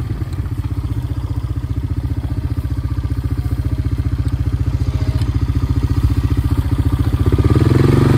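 Four-wheeler engine running steadily at low speed with a fast, even firing pulse, getting louder about seven and a half seconds in.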